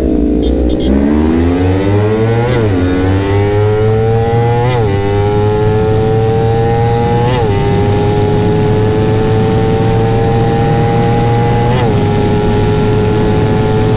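Sport motorcycle engine pulling away in first gear and accelerating hard, revs climbing then dropping at each of four upshifts, the climbs getting smaller with each gear until it runs steadily at speed. Steady wind noise underneath.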